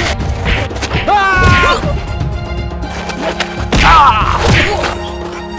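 Background music with sharp whacking hits laid over it, the loudest about four seconds in.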